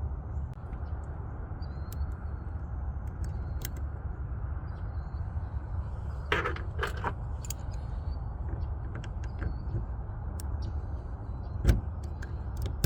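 Keys and lock cylinder parts being handled, with small metallic clicks and jingles, a louder rattle about six seconds in and a sharp click near the end, over a steady low rumble.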